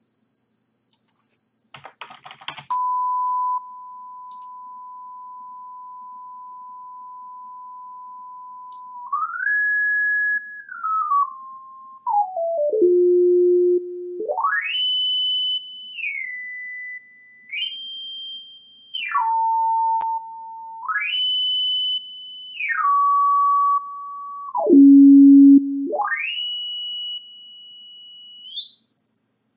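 Pure sine-wave test tone from a signal-generator program, its pitch changed by dragging the frequency slider. A steady high tone gives way to a short crackle about two seconds in, then a steady mid tone for several seconds, then the pitch glides and steps up and down between low and high notes, holding each for a second or two, loudest at the lowest note near the end.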